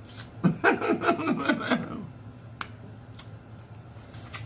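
A short burst of laughter, rapid pulses lasting about a second and a half. After it come a few scattered sharp clicks from eating at the table.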